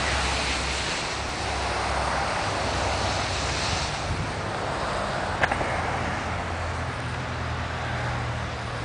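Steady street traffic noise: a continuous hiss like tyres on a wet, slushy road, over a low hum. There is a brief click about five seconds in.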